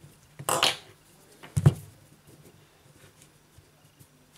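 Handling noise from fingers working on an opened smartphone on a work mat: a brief scrape about half a second in, then a single dull thump a little over a second later, the loudest sound, followed by faint light ticks.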